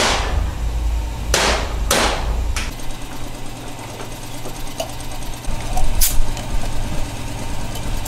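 About five sharp knocks, the first right at the start and the last about six seconds in, over a low steady rumble.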